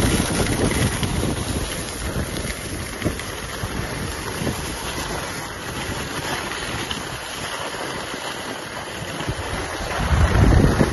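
Wind rushing over the microphone of a skier going downhill, with the hiss of skis sliding on freshly groomed corduroy snow. The rush swells louder near the end.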